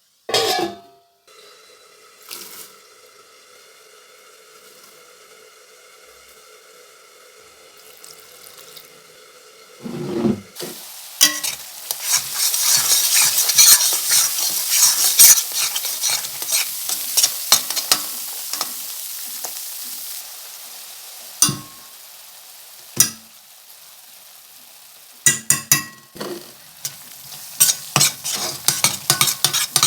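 A utensil clatters against a pan, followed by a faint steady hum. About ten seconds in, food goes into hot oil and a loud sizzle rises, then slowly dies down. Near the end a spoon stirs the pan with quick scraping clinks.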